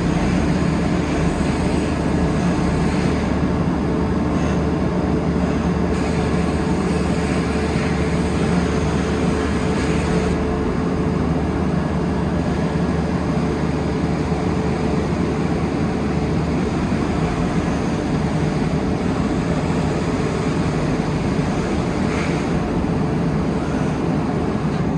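Diesel engine of a Vögele Super 1800-3i asphalt paver running steadily, a constant loud rumble with a low hum.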